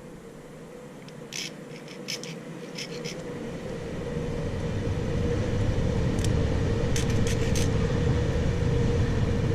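A low mechanical rumble with a steady hum grows louder from about four seconds in, like an engine running close by. A few light clicks and scratches come in two clusters, the sound of steel key blanks and a file being handled.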